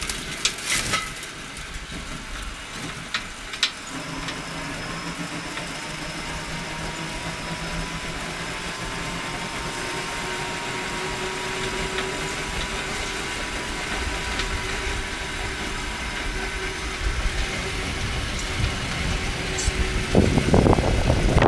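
Homemade battery-electric rail rider on bicycle wheels rolling along railway track: a steady hum and rolling noise with a faint whine slowly shifting in pitch, and a few sharp clicks in the first seconds. Wind buffets the microphone near the end.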